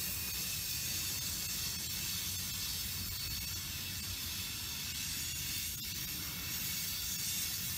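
Freight train cars (tank cars and covered hoppers) rolling past on the track: a steady low rumble and hiss of steel wheels on rail, with one faint click about six seconds in.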